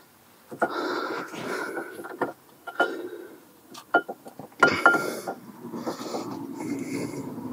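Metal clinks, knocks and scrapes of a brake caliper and its pads being worked into place over a brake disc by hand, several of the knocks ringing briefly; the loudest come just under five seconds in.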